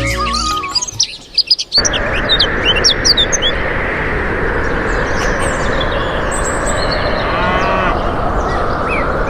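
A short music intro cuts off within the first second. After a brief gap, birds chirp over a steady rushing noise that continues to the end and is the loudest sound.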